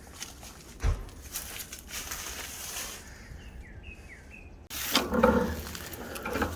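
Outdoor ambience with a small bird chirping: a quick run of four short, falling chirps midway. A single thump comes about a second in. After an abrupt cut near the end there is louder rustling, knocking noise.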